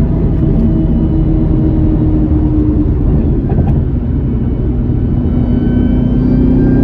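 A car being driven: steady engine and road rumble, with an engine tone rising slightly near the end.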